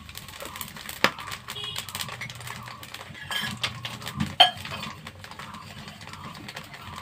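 A spice paste sizzling and crackling in hot oil in a karahi, with a steady patter of small pops. There are two louder sharp clicks, about a second in and about four and a half seconds in.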